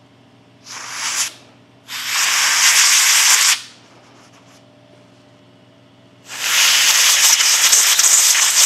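Compressed-air blow gun hissing in three blasts, blowing chips out of freshly tapped holes in a bearing housing: a short one about a second in, a longer one at about two seconds, and a long one from about six seconds on.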